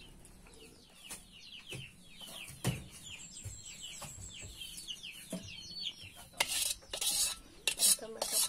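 Chicks peeping over and over, with a few knocks, one of them sharp. From about six seconds in, a metal ladle scrapes against a wok in repeated bursts.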